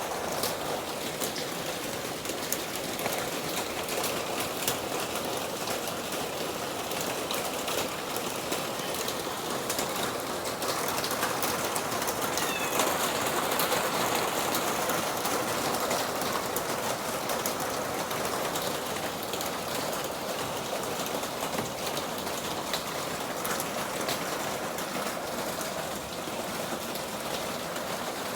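Steady rain falling and pattering on surfaces, with a bird calling briefly once about halfway through.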